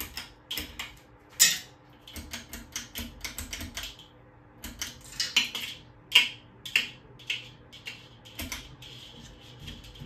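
Pull-chain switches of a 42-inch Menards ceiling fan clicking over and over in quick irregular runs, the chains rattling, over the faint steady hum of the fan motor.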